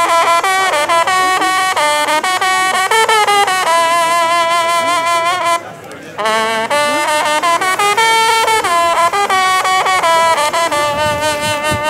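French hunting horn (trompe de chasse) playing a fanfare: loud, held brassy notes in phrases, with a short break for breath about six seconds in.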